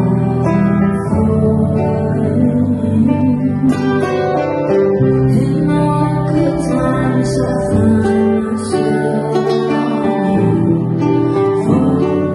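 Live band playing a song: strummed acoustic guitar over a steady bass, with a voice singing.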